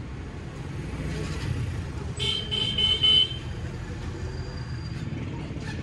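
A vehicle horn beeps three short times about two seconds in, over a steady low rumble of traffic.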